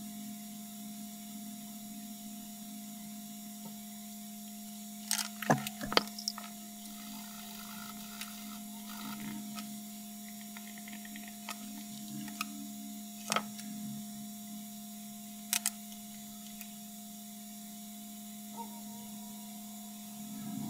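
A steady electrical hum from the soldering bench equipment, with a few sharp clicks and taps of small tools being picked up and set down during soldering work on a circuit board.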